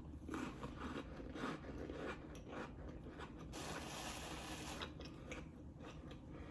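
A person chewing and crunching crackers topped with smoked oyster and cheese: a run of faint, crisp crunches, with a denser scratchy stretch about halfway through.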